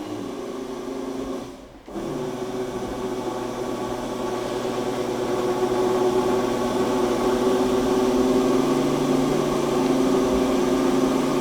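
Electric hydraulic pump of a disc sander's lift table running with a steady hum as it moves the table. It cuts out briefly about two seconds in, then starts again and runs on.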